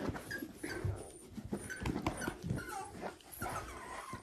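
Several young puppies whimpering and yipping in short, high squeaks, one after another.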